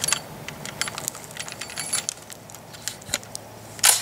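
A 12-gauge shotgun being loaded and handled: a run of small metallic clicks and rattles, with a sharper clack about three seconds in and a louder one near the end.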